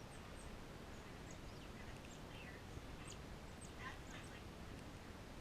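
Faint, short high-pitched animal squeaks and chirps, scattered irregularly, over a low steady background hum.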